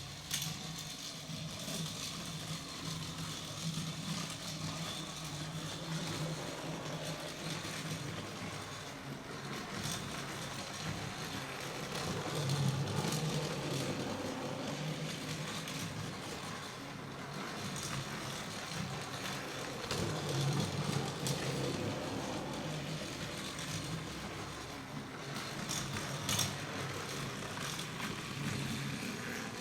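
Battery-powered motorized Thomas toy engine running along plastic TrackMaster track: a steady whirring motor hum with wheels rattling on the track, getting louder twice as it passes closer, with a few clicks.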